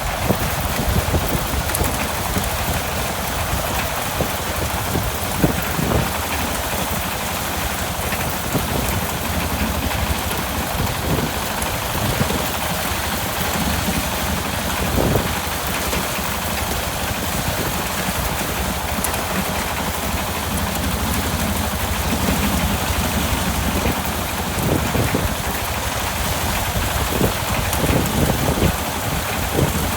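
Small engine of a locally built rice harvester running steadily under a dense rushing noise, with a few brief low thumps.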